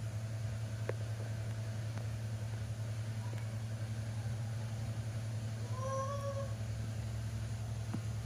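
A steady low hum, with a baby monkey giving a short squeaking call about six seconds in and a fainter one near the start. A few faint clicks are scattered through.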